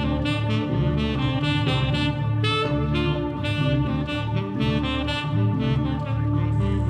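Background music: an upbeat tune with a steady beat and a pitched melodic lead. Near the end a falling swoosh begins as it changes to a softer, ambient passage.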